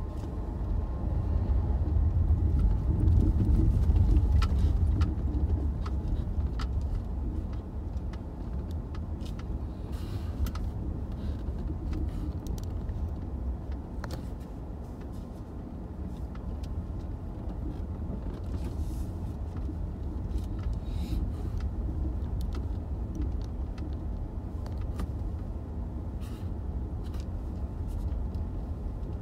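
Car driving on a rutted dirt road, heard from inside the cabin: a steady low rumble of engine and tyres, louder a few seconds in, with scattered knocks and rattles as the car goes over the bumps.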